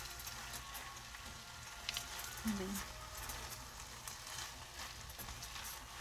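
A ground beef and rice filling sizzling faintly in a frying pan while a spatula stirs and scrapes through it, making soft, repeated scraping strokes against the pan.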